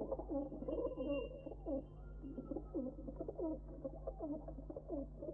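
Pigeons cooing, many calls overlapping and repeating, over a steady low hum.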